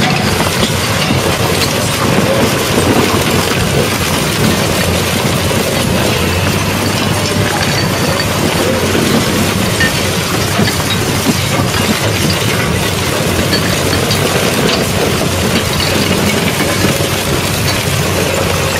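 Experimental harsh-noise music: a dense, steady wash of rumbling, crackling noise filling the whole range. A low steady hum grows stronger about six seconds in.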